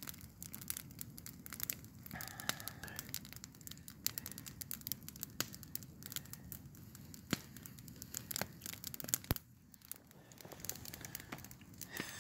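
Wood campfire of stacked branches crackling, with irregular sharp pops and snaps, a few of them louder, over a low hiss.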